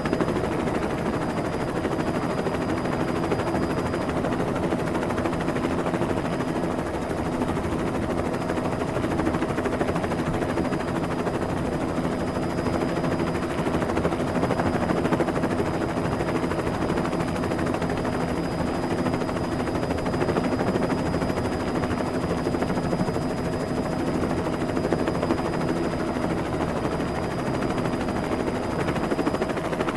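Helicopter sound effect: a steady, rapid rotor chop with an even engine drone and a thin high whine.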